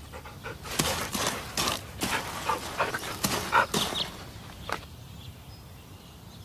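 An animal making short, irregular breathy huffs that stop about two-thirds of the way through.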